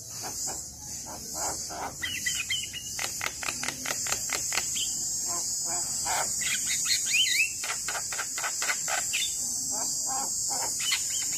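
Javan myna calling: a fast run of harsh clicking, chattering notes with a few short whistled glides, over a steady high-pitched insect drone.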